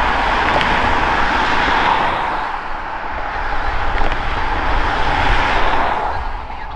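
Mechanical Q siren on an approaching fire apparatus, wailing loudly. It eases off about two and a half seconds in, winds back up, then falls away near the end.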